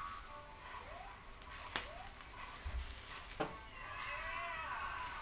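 Chicken heart skewers sizzling on a wire rack over a charcoal fire, with a couple of sharp pops.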